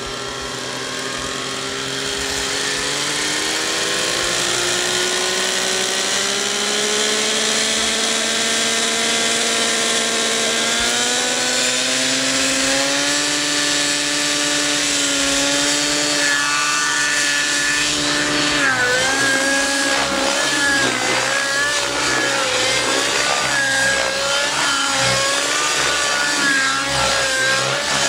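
Nitro glow engine and rotor of an Outrage Velocity radio-controlled helicopter spooling up on the ground, the pitch climbing steadily over the first ten seconds or so and then holding. From about two-thirds through, the pitch wavers quickly up and down as the throttle and blade pitch are worked and the helicopter lifts into a low hover.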